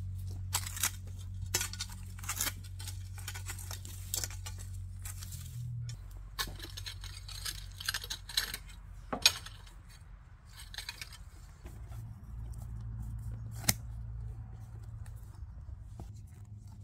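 Scraping and clicking of a shovel and a metal garden rake working loose soil, with a few sharp clicks along the way. Near the end, hand pruning snips cutting a rubber floor mat.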